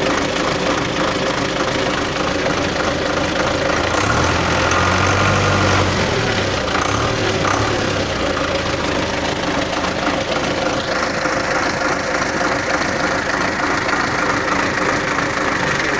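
MTZ-82.1 tractor diesel engine idling cold, just after a fuel injection pump repair, with a knocking diesel clatter. A steadier low rumble swells from about four to nine seconds in, and a higher hiss joins about eleven seconds in.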